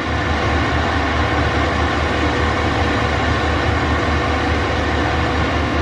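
A heavy engine of the tree-removal machinery running steadily, with a low, throbbing rumble.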